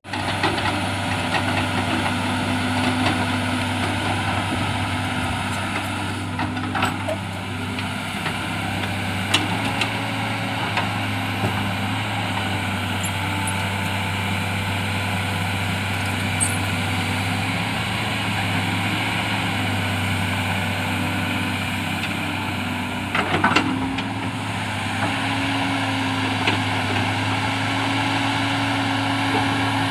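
Tata Hitachi crawler excavator's diesel engine running steadily while it digs, with a few short knocks, the loudest about two-thirds of the way through.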